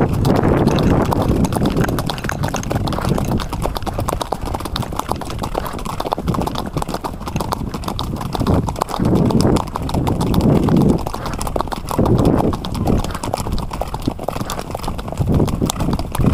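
Hoofbeats of several Icelandic horses walking and trotting in a line on a dirt and grass track, a steady fast run of clopping strikes. A few louder low bursts of noise rise over the hooves about halfway through and again near the end.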